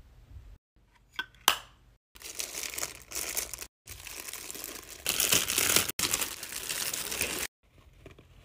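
Clear plastic packaging crinkling and rustling as it is handled and opened, in several stretches that cut off abruptly, loudest about five seconds in. A couple of sharp clicks come just before it.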